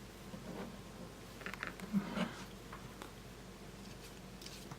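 Faint, scattered light rubbing and handling noises from wiping the camera lenses of an opened OnePlus 3 smartphone clean, with a couple of soft low bumps about two seconds in.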